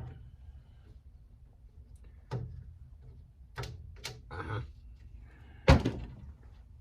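A few separate knocks and clicks of parts and tools being handled on the heater's metal housing, with one louder thump near the end.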